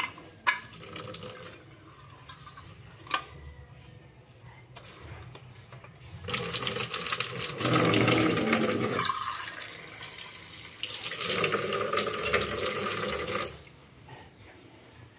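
Water running from a tap in two spells of several seconds, starting about six seconds in and again about eleven seconds in, with two sharp clicks in the first few seconds.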